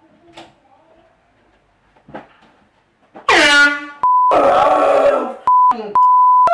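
Handheld air horn blasting suddenly about three seconds in, followed by loud yelling broken up by several steady, high censor beeps.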